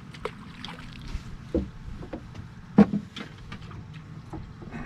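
Scattered light clicks and knocks of fishing gear being handled, with one louder, duller knock about three seconds in.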